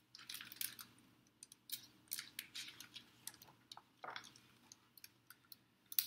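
Pages of a large picture book being handled and turned: irregular light rustles and clicks of paper.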